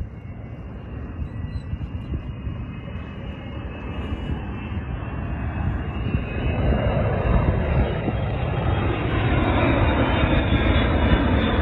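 B-52H Stratofortress bomber's eight turbofan engines: a deep jet rumble growing steadily louder as the aircraft approaches, with a faint whine rising in pitch on top.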